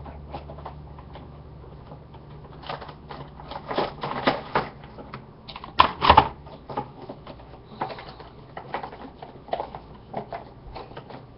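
Action figure packaging being opened by hand: an irregular run of clicks, crinkles and rustles of cardboard and plastic, with the loudest snaps about four and six seconds in.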